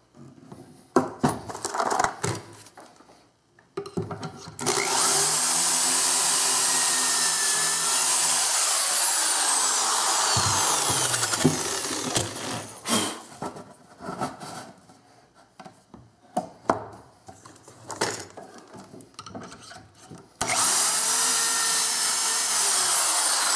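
Cordless drill boring pocket holes through a Kreg pocket-hole jig into a 5/8-inch wooden board: two long drilling runs, the second starting near the end, each a steady high whine. Between them, knocks and clatter of the board and jig being handled.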